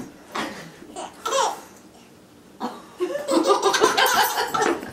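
Laughter: two short laughs in the first second and a half, a quiet pause, then a longer run of laughing over the last two seconds.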